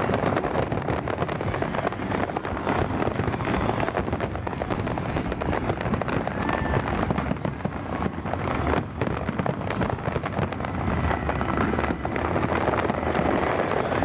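A dense barrage of aerial fireworks: bangs and crackles follow one another in rapid, unbroken succession.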